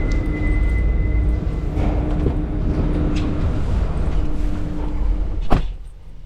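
Car ferry's machinery droning steadily with a low hum, under heavy low rumble, with a single sharp knock near the end.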